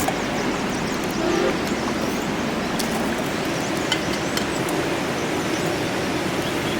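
Steady rushing of a flowing river, with a few faint clicks.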